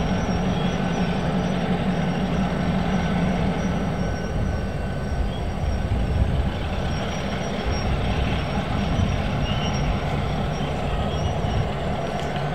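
Diesel-hauled train running, a steady low rumble of engine and wheels. A low engine drone is strong at first and eases about four seconds in, while the rumble carries on.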